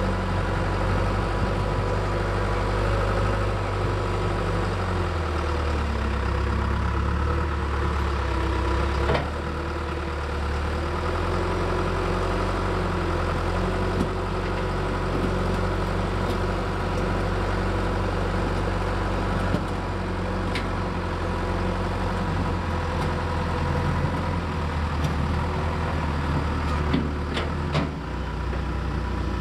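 John Deere 310SE backhoe's diesel engine working under load as it pushes dirt with its front loader bucket, the engine speed rising and falling several times, with a few sharp knocks.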